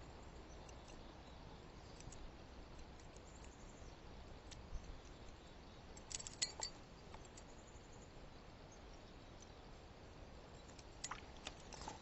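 Faint steady hiss with scattered small clicks and taps, a short cluster of sharper clicks about six seconds in and a few more near the end.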